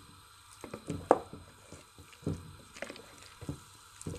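A few scattered light knocks and clicks from cookware and utensils being handled, the loudest about a second in.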